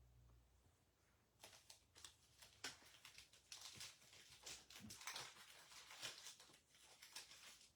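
Faint rustling and many small flicks as trading cards are handled and slid against each other, starting about a second and a half in.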